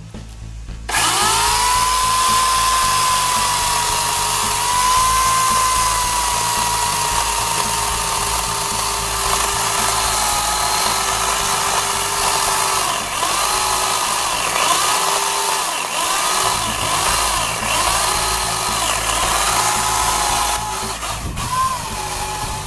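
Chicago Electric 14-inch electric chainsaw's 1¾-horsepower motor starting about a second in and cutting through a thick log with a steady high whine. From about halfway on, the pitch dips and recovers again and again as the cut loads the motor.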